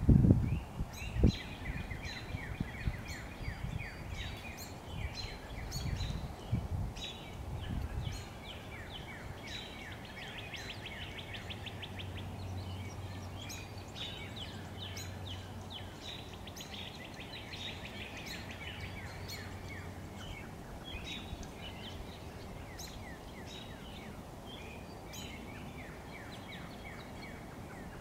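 Red-bellied woodpecker chiselling at its nest cavity in a tree trunk: dull knocks through the first eight seconds or so. Songbirds sing throughout with rapid trills and chirps.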